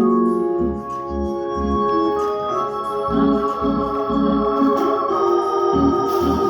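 Organ music: held chords with short, repeated low bass notes underneath.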